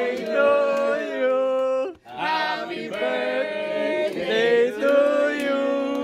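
A group of people singing together without accompaniment, holding long notes. The singing cuts off abruptly about two seconds in, then carries on.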